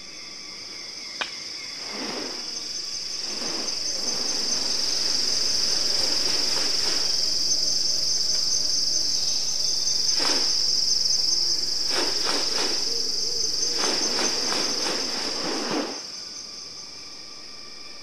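Steady, high-pitched drone of rainforest insects, with repeated rushing swishes of a male magnificent riflebird's wings during its courtship display. The swishes come in clusters from about two seconds in and stop at about sixteen seconds.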